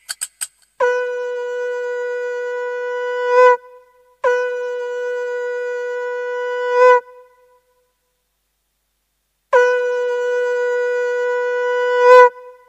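A horn-like sound-effect tone on a Casio CT-X700 keyboard, one steady pitch held three times for about three seconds each, swelling louder just before each release.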